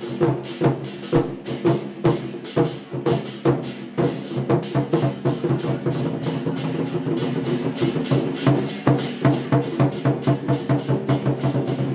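Chinese war drums beaten in a fast, steady rhythm of repeated strokes, with sustained tones droning underneath. The strokes grow denser in the second half.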